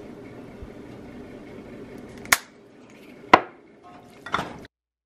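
Three sharp glass clinks about a second apart, from a glass spice shaker and a glass mixing bowl being handled, over a steady low hum.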